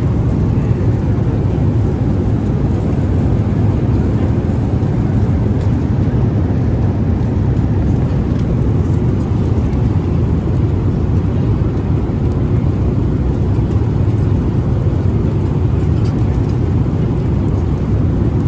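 Steady low rumble of airflow and engines inside the economy cabin of a Boeing 777-300ER in flight, even in level throughout.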